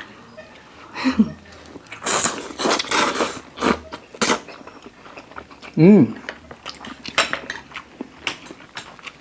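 Instant noodles being slurped up with chopsticks, a dense wet sucking noise strongest about two to three and a half seconds in. Chopsticks click against plates and bowls throughout, with a short hummed 'mm' about a second in and another near six seconds.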